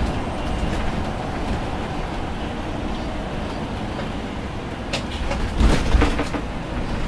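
Steady low engine and road rumble inside a motor home's cab as it rolls slowly. Between about five and six and a half seconds in, a cluster of knocks and rattles comes through.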